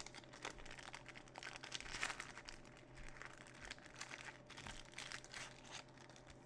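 Faint, irregular crinkling and rustling of thin plastic as trading-card sleeves are handled and pulled from their packaging.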